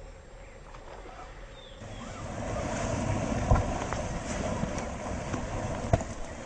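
A hooked pike thrashing and splashing at the water's surface, the frog lure in its mouth, with two sharper slaps in the water. The first two seconds hold only a quiet outdoor background.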